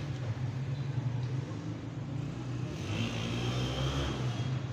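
A motor engine runs with a steady low hum. About three seconds in, a louder rushing sound with a deep rumble swells and then eases near the end.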